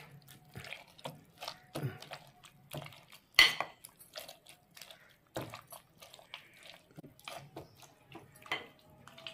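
A metal masher pressing chopped strawberries in a glass bowl: irregular soft squishes and light clinks of metal on glass, with one sharper clink about three and a half seconds in.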